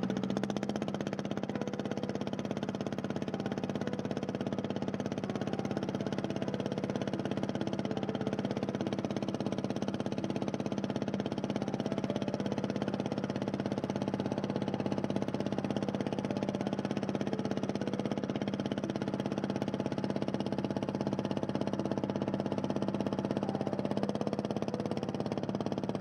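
A boat's engine running steadily, a constant hum that holds the same pitch throughout.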